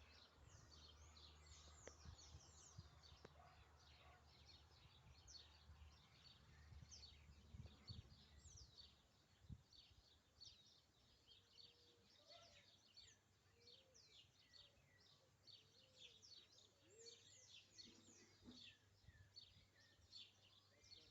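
Faint chorus of many small birds chirping, with rapid short notes sweeping down in pitch and overlapping all the while. Under them is a low rumble that fades out about halfway.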